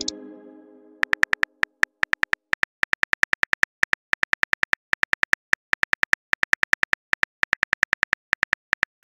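Rapid keyboard-click sound effects from a texting-story app as a message is typed, about six clicks a second in short runs with brief pauses. The tail of a chime fades out in the first second.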